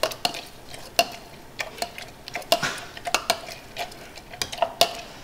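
A muddler crushing basil and grapefruit wedges in a stainless steel cocktail shaker, pressing out the juice. It knocks and clinks against the metal tin at an irregular pace, several strikes a second, some with a brief ring.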